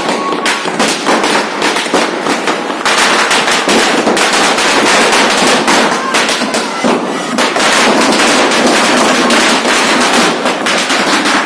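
Firecrackers in a burning Ravan effigy going off in a rapid, continuous string of pops and crackles, denser from about three seconds in.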